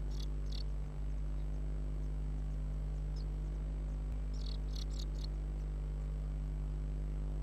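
Blue tit chicks begging in the nest with short, high-pitched squeaks: a few near the start, one about three seconds in, and a quick cluster about four to five seconds in, as the adult feeds them. A steady low hum runs underneath.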